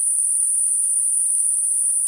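Steady, high-pitched synthetic hiss: Gaussian narrowband noise peaking at 9.5 kHz, generated as a tinnitus-masking sound, with no change in level or pitch.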